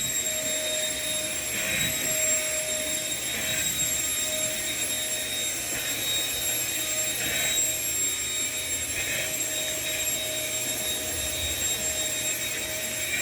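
Vacuum cleaner running steadily with a high whine, sucking up scraps of paper from the floor.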